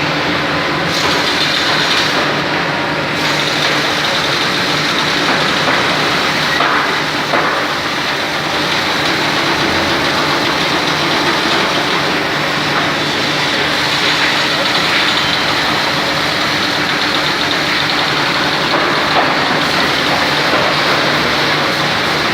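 A machine running steadily: a loud, even mechanical noise with a low hum underneath, unchanged throughout.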